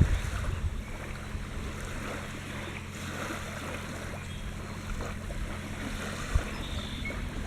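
Gentle ocean waves washing on the shore, with a steady low hum underneath.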